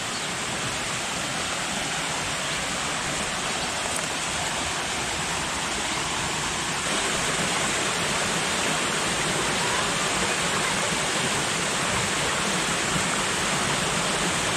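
Small waterfall and creek cascades splashing over rocks: a steady rush of falling water that gets a little louder about halfway through.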